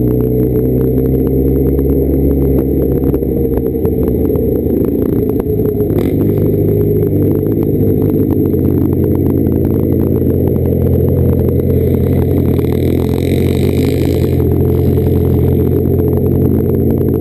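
Motorcycle engine running steadily while ridden at low speed, its note rising and falling a little. A single sharp click sounds about six seconds in.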